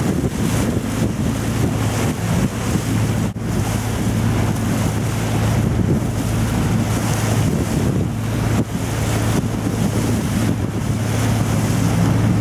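Boat's engine running with a steady low hum, under the rush of wind on the microphone and water along the hull.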